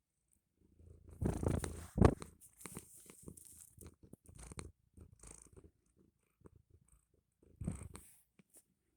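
Domestic cat purring close to the microphone, in uneven swells that are loudest one to two seconds in and again near the end.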